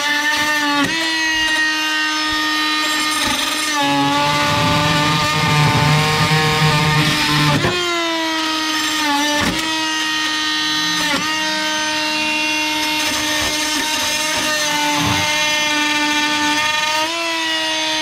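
Rockwell Sonicrafter oscillating multi-tool running with its blade pressed into rusted steel: a steady high buzz whose pitch sags briefly each time the blade bites under load. A gritty cutting rasp rises from about four seconds in to about seven and a half.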